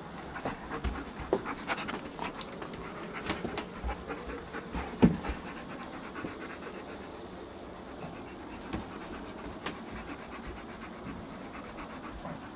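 German shepherd panting close by, with scattered knocks and rustling over the first half and one louder knock about five seconds in.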